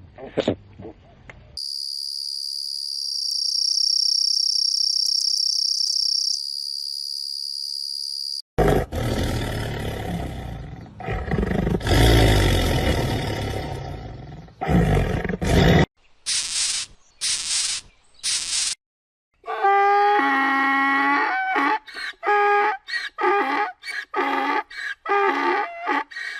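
A string of different animal calls. A steady high whistling tone is held for several seconds, then a long loud roar, typical of a big cat. After it come a few short high squeals and a rapid series of repeated pitched calls.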